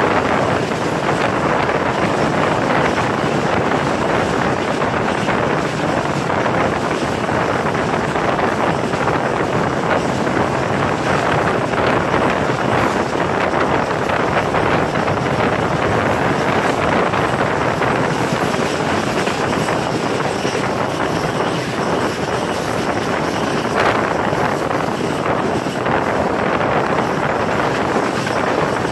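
Wind rushing over the microphone held outside the Karakoram Express passenger train as it runs at speed, with the train's steady running noise beneath.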